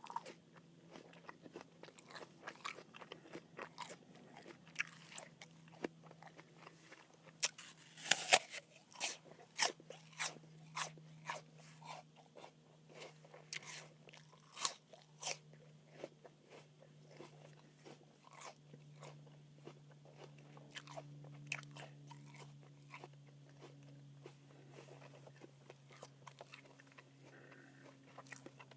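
Crisp apple being bitten and chewed: loud crunches about eight seconds in, then a long run of smaller, irregular crunching as it is chewed. A faint steady low hum runs underneath.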